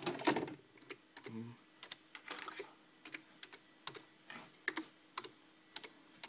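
Typing on a computer keyboard: light, irregular key clicks with short pauses between runs.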